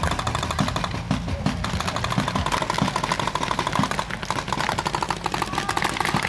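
Paintball markers firing rapidly, a dense run of quick shots going on throughout.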